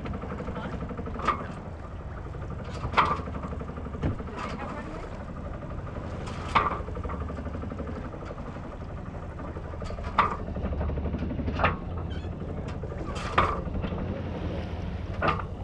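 Sounds aboard a sailboat under way in light wind: a steady low rumble, with short sharp knocks every second or few.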